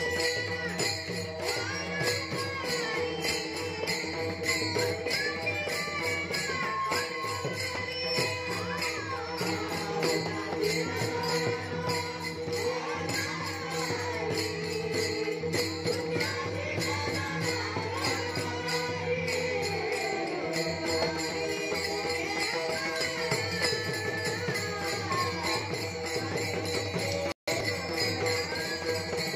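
Young Warkari singers chanting a devotional bhajan together over a steady drone, with many pairs of small brass taal hand cymbals clashing in a fast, even rhythm. The sound drops out for a split second near the end.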